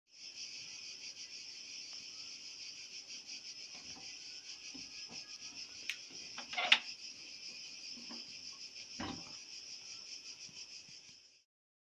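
Steady chorus of summer insects, a high, even buzzing. A few knocks and clatters sound over it, the loudest about two-thirds of the way through. It cuts off suddenly near the end.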